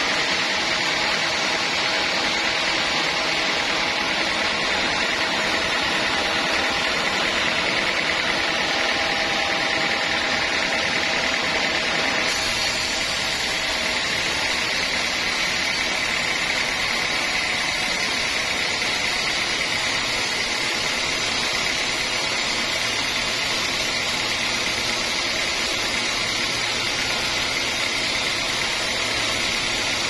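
Sawmill band saw running as its blade cuts lengthwise through a dense-grained teak beam: a steady mechanical noise with a high tone held over it. The sound changes slightly about twelve seconds in.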